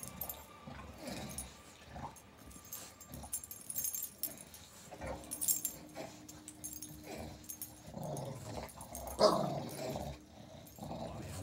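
A bulldog making low growling grunts as it twists and strains to reach an itch with its mouth, with one louder grunt about nine seconds in. The metal tags on its harness jingle now and then.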